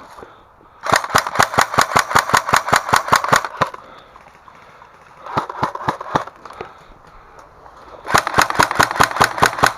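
Airsoft rifle firing full-auto in three bursts of rapid plastic BB shots: a long burst about a second in, a short one midway, and another near the end.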